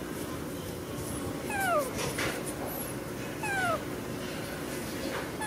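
Two short, high animal calls, each sliding quickly downward in pitch, about two seconds apart.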